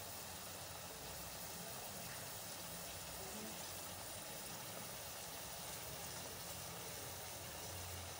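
Faint steady hiss of eggplant and potato pieces cooking quietly in a pot on the stove, left unstirred, with a low hum underneath.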